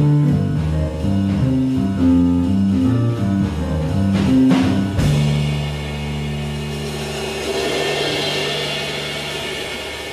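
Small jazz ensemble of trombone, trumpet, saxophones, piano, guitar, bass and drums playing the closing bars of a tune: a moving line up to a sharp accented hit about halfway through, then a long held final chord with a swelling cymbal wash that slowly fades.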